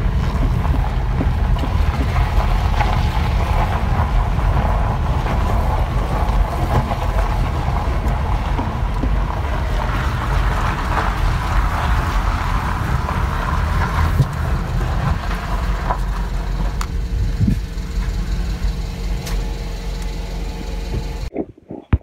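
Car driving on a dusty dirt road: a steady low rumble of engine and tyres on loose ground. It stops suddenly near the end.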